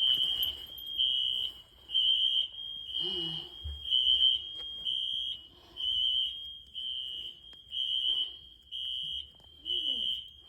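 Building fire alarm beeping: one high, piercing tone repeating on and off evenly, a little more than once a second. A resident says it was set off over a burst pipe, not a fire.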